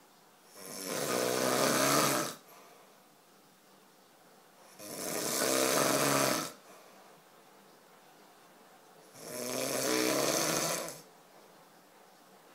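Loud, rhythmic snoring: three long rasping snores about four seconds apart, each building up and then cutting off.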